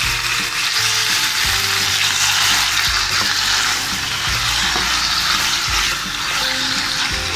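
Raw marinated chicken pieces sizzling steadily in hot oil in a pan, stirred with a spatula that gives a few soft knocks against the pan.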